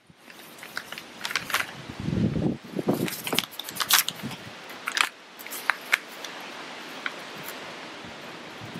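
Torn paper photograph being handled and fitted together: crinkling and rustling of paper with sharp little crackles, quieter from about five seconds in.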